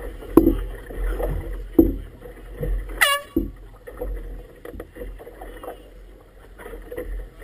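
Choppy water slapping against the inflatable hull of a small boat: several sharp slaps about one and a half seconds apart over a steady low rumble of water and wind. About three seconds in, a short high tone falls quickly in pitch.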